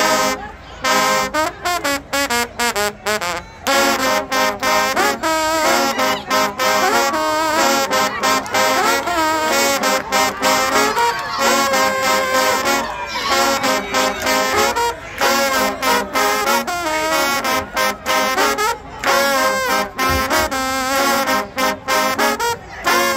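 Marching band trombone section playing a loud, brassy tune in short punchy phrases with brief breaks between them.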